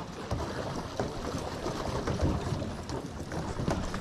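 Wind buffeting the microphone as a low, irregular rumble, with small scattered ticks and crackles over it.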